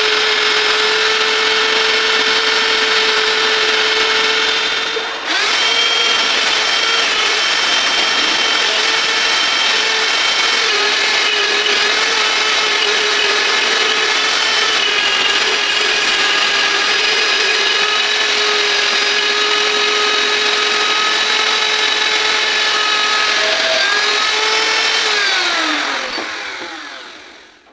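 Electric grinder clamped in a lathe toolpost running at speed, its pink grinding stone grinding a steel arbor turning in the chuck: a steady high whine with a short dip about five seconds in. Near the end the whine falls in pitch and fades as the grinder spins down.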